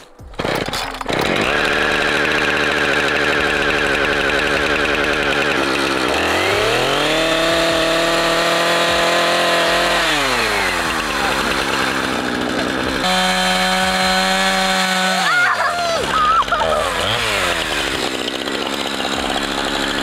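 Two-stroke gas chainsaw started from the ground, running at a lower speed, then revved up to a high steady whine twice and let back down. Near the end the pitch wavers and sags as the chain bogs under load cutting through the trunk of a small conifer.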